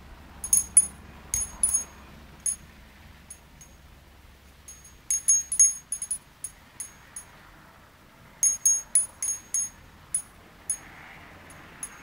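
Furin (Japanese wind bell) ringing as its clapper strikes the bell, swung by the wind on its paper strip. It rings in three flurries of quick, high, bright clinks, near the start, around the middle and toward the end, with a few single strikes between.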